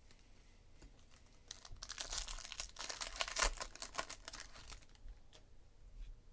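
Foil wrapper of a trading-card pack crinkling and tearing as it is pulled open by hand. A dense crackle starts about a second and a half in and lasts around two and a half seconds, then gives way to a few faint ticks.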